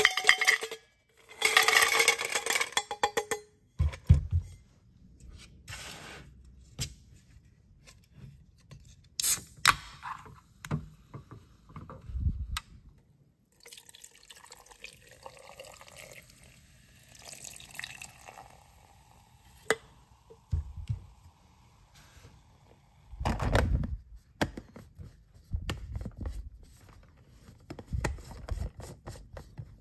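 Ice cubes clattering into a stainless steel tumbler, followed by scattered knocks and clicks. Later a carbonated energy drink is poured from a can into the tumbler with a soft fizzing hiss. Near the end there is a loud knock, then the plastic lid is fitted and turned on.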